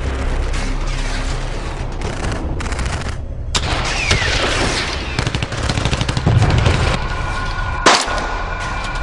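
Gunfire sound effects: a dense run of rapid shots, with a brief break about three and a half seconds in and one loud single shot near the end. Music plays underneath.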